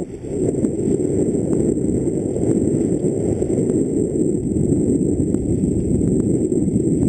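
Wind buffeting a helmet-mounted camera's microphone during a fast mountain-bike descent, a steady low rush mixed with tyre noise on the dirt trail and small clicks and rattles from the bike.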